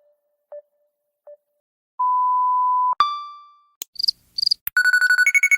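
A string of short electronic app alert sounds from Facebook and Messenger: a steady one-second beep, then a single ringing ding, two quick high chirps, and a rapid warbling trill near the end.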